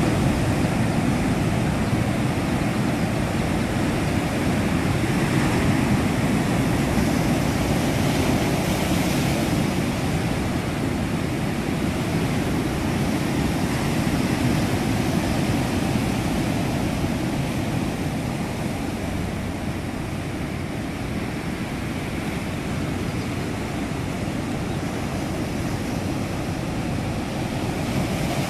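Surf breaking and washing over a shore of dark boulders: a continuous rush of waves that eases a little past the middle and builds again near the end.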